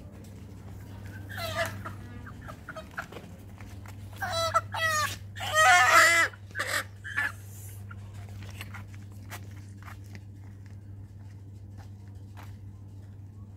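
Chickens in a crate squawking and clucking as one is picked up: a run of harsh calls between about one and a half and seven seconds in, loudest around six seconds, over a steady low hum.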